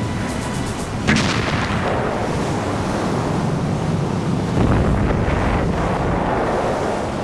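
A sudden bang about a second in, followed by the steady rush of heavy sea and wind that swells about five seconds in: a depth charge exploding astern of a warship in rough water.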